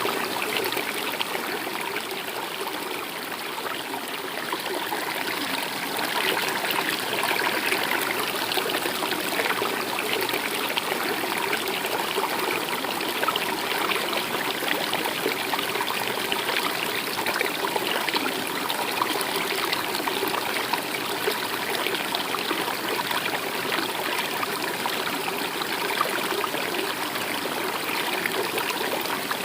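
Stream water flowing and trickling steadily over rocks, an even, unbroken babble.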